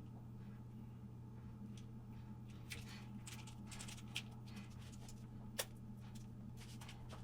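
Faint scattered clicks and taps of a plastic plug and hot glue gun being worked by hand, over a steady low hum, with one sharper click a little past the middle.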